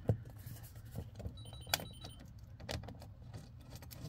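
Faint, irregular metallic clicks and clinks of a battery cable's ring lug and terminal nut being handled and fitted onto a lithium battery's negative terminal.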